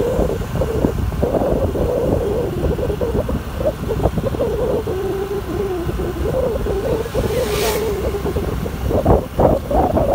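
Honda Activa 5G scooter's single-cylinder 110 cc engine running at cruising speed, its drone wavering slightly in pitch, with wind buffeting the microphone. A brief hiss sounds about seven and a half seconds in.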